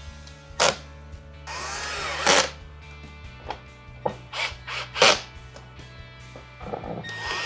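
Power drill driving a screw in several short bursts, its motor pitch rising and falling with each run.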